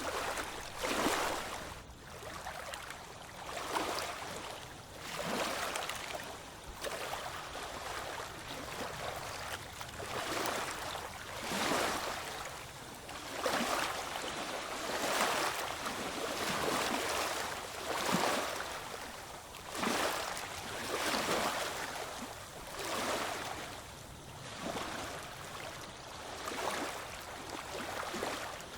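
Small waves washing in, a hiss of water that swells and falls back every two seconds or so.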